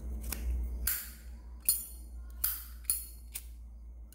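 Zippo lighter being handled: a series of about five sharp metallic clinks roughly half a second apart, typical of the hinged lid and steel case snapping and knocking.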